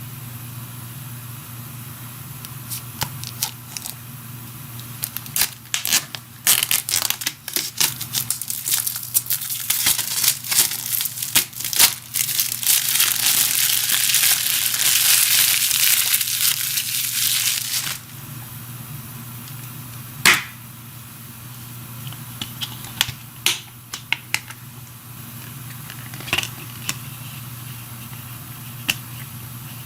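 Plastic shrink-wrap on a Blu-ray case being torn and crinkled off: crackling that builds to a steady tearing noise for several seconds in the middle, then stops abruptly. After it come scattered sharp clicks and snaps of plastic, over a steady low hum.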